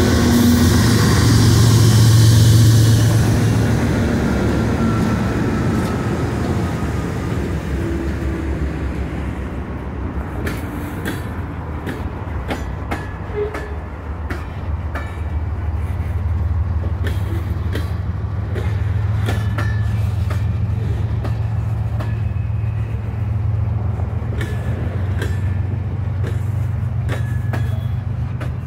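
Freight train passing close by: diesel locomotives rumble past at first, then covered hopper cars roll by with their wheels clicking steadily over the rail joints. Partway through, a second train's diesel locomotives draw near on the adjacent track and add a deeper engine rumble.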